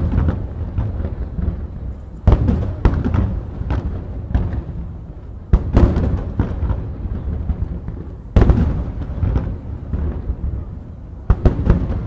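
Large aerial firework shells bursting: a string of deep booms a second or few apart, the loudest about two, six, eight and a half and eleven seconds in, each followed by a long rolling rumble.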